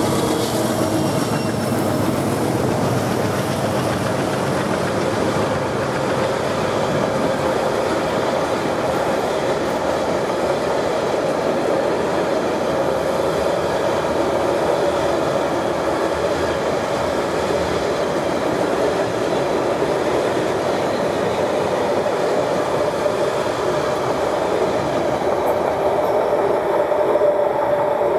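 Loaded freight wagons of a pipe train rolling past close by: a steady, loud noise of steel wheels on rails, with some clickety-clack. The engine tone of the MLW diesel locomotives ahead of them fades within about the first second.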